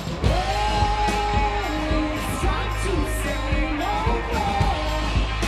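A live rock band playing: a singer holds long notes that slide up and down, over guitar and a drum kit.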